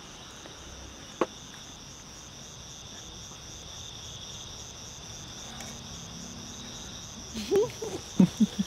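Night chorus of crickets chirping steadily, a high, even pulsing trill. A sharp click sounds about a second in, and a few short, louder low sounds come near the end.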